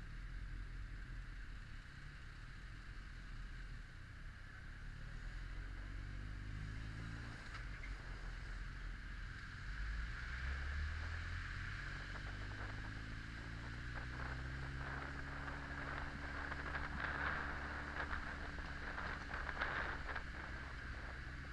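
Honda X4's inline-four engine running at low road speed, its pitch rising slowly as the bike accelerates from about halfway through. Wind rushes over the camera microphone and becomes gusty toward the end.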